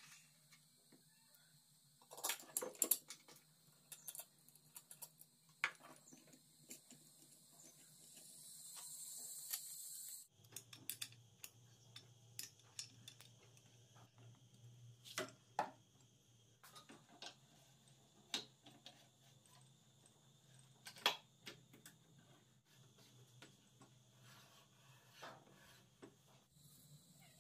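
Faint, scattered clinks and taps of a steel wrench and metal bolts being handled on a workbench, over a faint low hum. About eight seconds in, a hiss rises and then cuts off suddenly.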